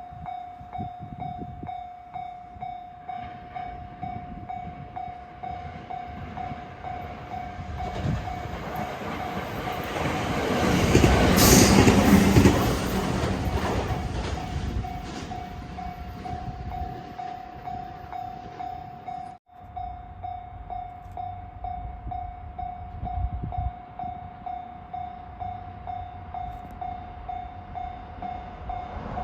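Japanese level-crossing alarm ringing in a steady rapid repeat while a train passes through the crossing. The train's noise builds from about eight seconds in, is loudest around eleven to twelve seconds, then fades.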